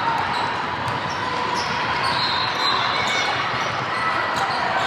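Basketball being played in a gym: sneakers squeaking on the court and a ball bouncing, over a steady hall noise.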